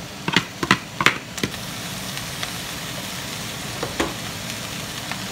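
Ground pork and shredded carrots frying in a skillet with cabbage, a steady sizzle as the filling is stirred. A few sharp clacks of utensils against the bowl and pan come in the first second and a half, and one more knock comes about four seconds in.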